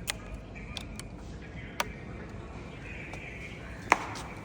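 Three short, sharp clicks or knocks over a steady low background, the loudest one near the end.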